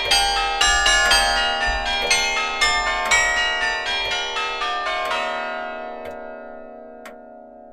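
Bells chiming a quick run of struck notes, about two or three a second. After about five seconds the last chord is left to ring and slowly fade, with two faint ticks as it dies away.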